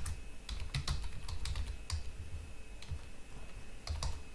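Typing on a computer keyboard: an uneven run of quick key clicks.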